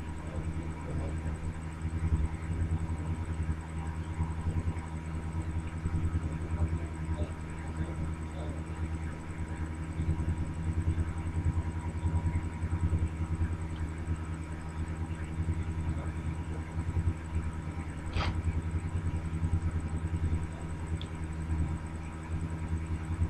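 Steady low hum with a faint thin whine above it, and a single sharp click about eighteen seconds in.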